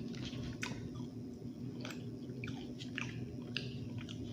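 Close-up chewing of food with scattered wet mouth smacks and small clicks, mukbang style.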